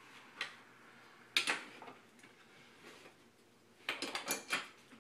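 Steel slotted wedges clinking against the metal studs of a fireworks mortar rack as they are set over the studs and tapped on: a single clink, a louder one about a second and a half in, then a quick run of clinks near the end.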